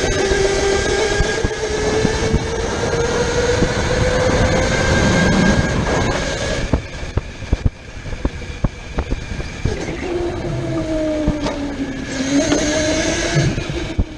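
Electric go-kart motor whining at speed, its pitch rising and falling through the corners over tyre and chassis rattle. The whine drops out for about three seconds from roughly seven seconds in, leaving scattered clicks and knocks, then comes back and climbs again.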